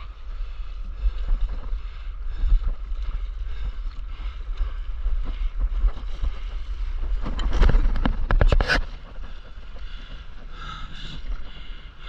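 Wind buffeting the microphone of a camera held low over the sea, with small waves lapping and splashing close by. About seven seconds in comes a louder, crackling burst of splashing that lasts under two seconds.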